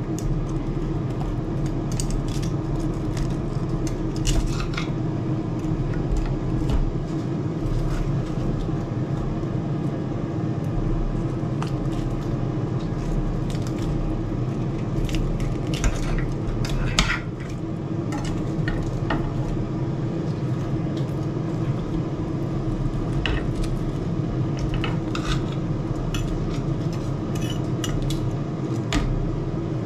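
Carving knife and fork scraping and clicking against a ceramic platter as a roast chicken is cut up, over the steady hum of an air fryer's fan running behind.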